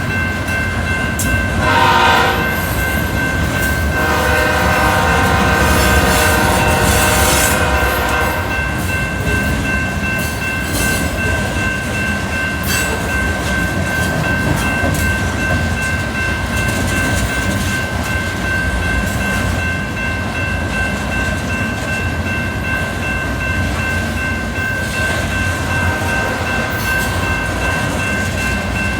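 A train passing close by, with a steady low rumble of the locomotive and cars on the rails and a steady high-pitched whine underneath. The locomotive's horn sounds a short blast about two seconds in, then a longer blast from about four to eight seconds.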